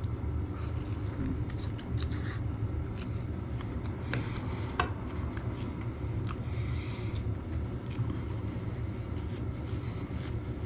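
Eating at a table: small clicks and scrapes of chewing and a fork set down on a paper plate, then a paper napkin rustling about six to seven seconds in. A steady low hum runs underneath.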